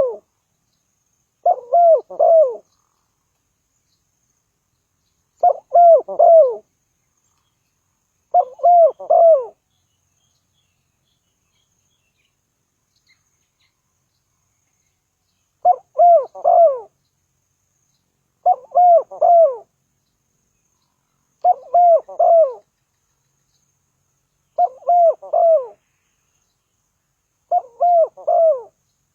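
Spotted dove cooing: a short three-note 'coo-coo-croo' phrase of about a second, repeated about every three seconds, with a pause of several seconds in the middle.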